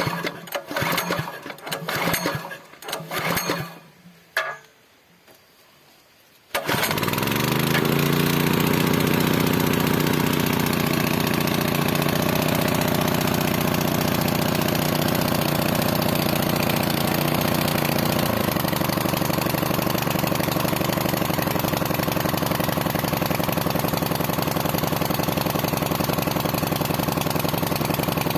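A few knocks and clatters, then about six seconds in a small water-pump engine starts abruptly and runs steadily with an even drone, its pitch shifting slightly about halfway through.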